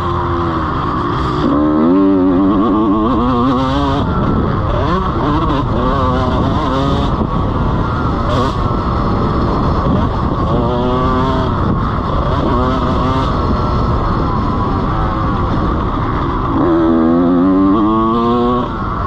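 Honda CR125 two-stroke motocross bike engine running hard on the track, its pitch climbing in rising revs about two seconds in, again around the middle, and loudest near the end as the bike accelerates out of turns.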